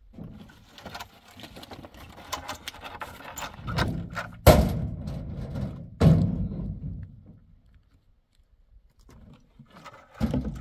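Clattering knocks and clicks, then two heavy thuds about a second and a half apart, each with a low rumble after it.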